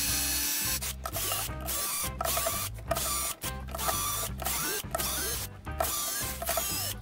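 Cordless drill-driver running in short repeated bursts, with brief stops between, as it backs out the screws holding a corded drill's plastic housing together.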